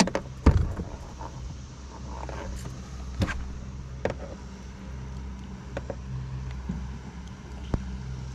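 Boat engine idling steadily, with a few sharp knocks and clicks from handling in the boat, the loudest about half a second in.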